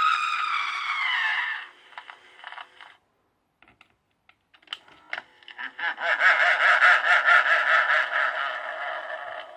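Recorded sound effects from a Bandai 'Dokuro no Sakebi' skull haunted-house toy game played through its small speaker: a falling scream ends a second or so in, a few clicks follow, then from about six seconds a long, rapidly pulsing ghostly laugh.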